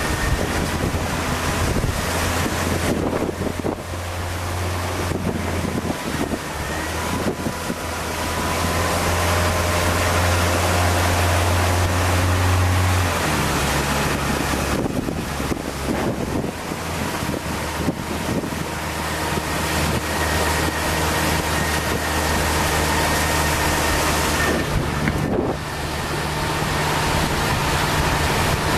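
Strong wind buffeting the microphone over choppy water, with the steady low hum of a motorboat engine underneath; the engine note shifts lower about halfway through.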